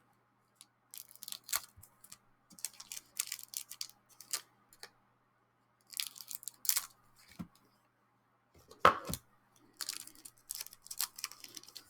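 Packaging of a photocard pack being torn open and handled, in short crackly rustles with a sharper snap near the end.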